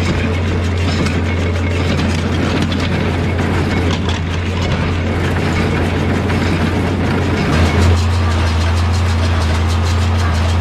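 Tractor engine running steadily with a John Deere small square baler working hay, a loud low drone; about three-quarters through the engine note briefly swells and then settles into a steadier hum.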